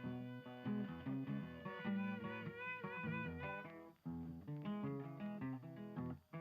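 Background music led by guitar: plucked and strummed notes with a steady melody, dipping briefly about four seconds in.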